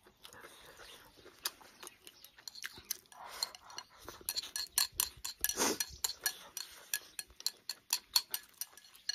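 Chopsticks clicking and scraping against a porcelain rice bowl as rice with sour long beans is shovelled into the mouth, with chewing in between. The clicks come many times, quick and irregular, with two louder scraping, rustling stretches near the middle.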